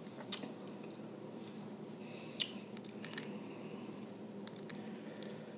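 Boiled crawfish being handled and pulled apart by hand: a few short sharp clicks and soft wet squishes of shell and meat, with eating sounds close to the microphone, over a steady low hum.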